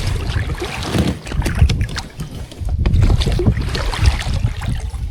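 Wind buffeting the microphone in a steady low rumble, with scattered knocks and clicks of handling.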